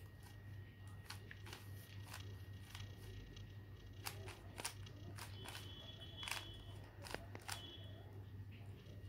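Plastic stickerless 3x3 speed cube clicking and clacking irregularly as its layers are turned by hand, over a steady low hum.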